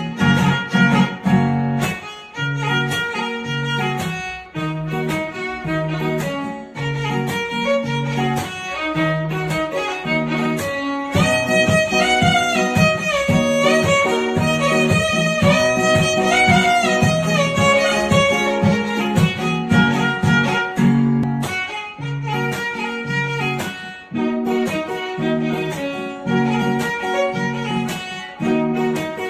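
Instrumental background music: a violin-like melody over a steady, repeating plucked accompaniment and bass. The melody slides up and down through the middle stretch.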